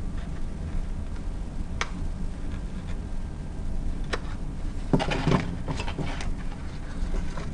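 Paper cube pieces being handled and folded by hand: a few scattered crinkles and taps, with a short busy cluster about five seconds in, over a steady low hum.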